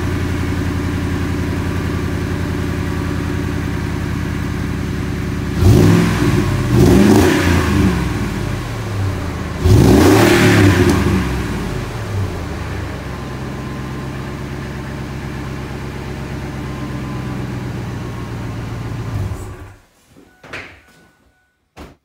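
1998 Ford Expedition V8 idling through a new full Magnaflow exhaust with a 3-inch tailpipe. It is revved in a few quick blips about six seconds in and once more near ten seconds, drops back to a steady idle, and the engine sound stops shortly before the end.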